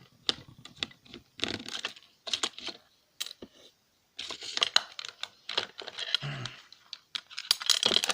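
Hands taking apart a plastic alarm clock: irregular clicks, taps and scraping of plastic parts being handled and pried apart, with a short pause near the middle.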